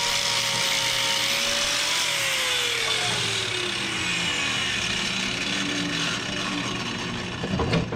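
Hoof-trimming grinder with a carbide-bladed wheel cutting a cow's hoof: a steady grinding noise, with the motor's whine dropping in pitch about two seconds in.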